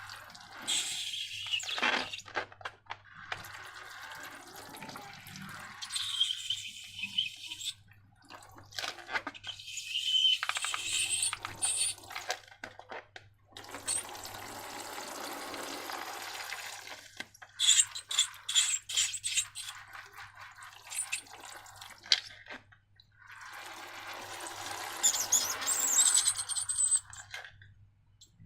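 Wet slime squelching and dripping in several bursts a few seconds long, with short pauses between and sharp wet clicks inside them.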